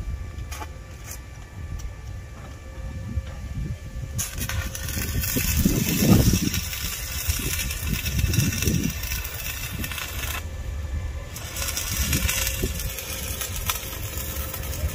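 Stick arc welding on steel window-grill bars: the arc's crackling hiss comes in two stretches, starting about four seconds in, breaking off for about a second near ten seconds, then starting again. A low rumble runs underneath, loudest about six seconds in.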